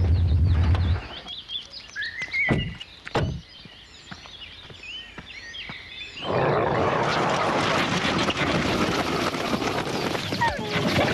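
A low engine rumble cuts off about a second in, leaving birds chirping over quiet garden ambience. From about six seconds in, a loud, steady rushing, splattering noise sets in as the mud-covered Jeep Grand Cherokee shakes the mud off itself.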